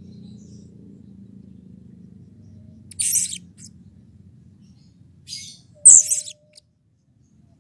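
Blue-crowned hanging parrot (serindit) giving short, shrill, very high-pitched calls: one about three seconds in, a fainter one a little after five seconds, and the loudest just before six seconds, over a faint low background rumble.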